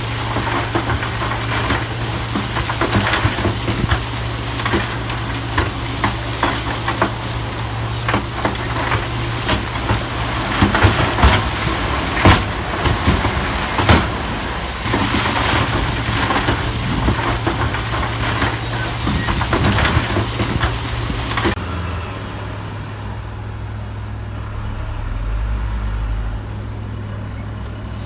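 Heavy diesel construction machinery running, with a steady engine drone under frequent clanks and knocks of metal and stone. About three-quarters of the way through it cuts suddenly to a quieter, steady engine hum.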